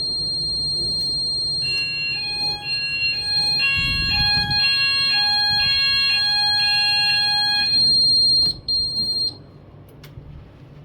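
Fire alarm sounding during a weekly test: a steady high-pitched tone, joined about two seconds in by a two-tone alarm alternating about twice a second. Both stop around eight seconds in, and the steady tone comes back briefly before cutting off.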